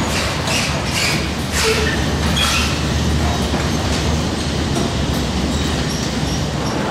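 Detachable gondola station machinery running: a cabin's grip carriage rolls along the station rail, driven by rows of rubber conveyor tyres, over a steady low hum. A string of short squeaks and clacks comes in the first few seconds.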